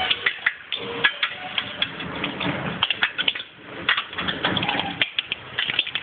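Hailstones pelting down, a dense irregular clatter of many sharp ticks and knocks.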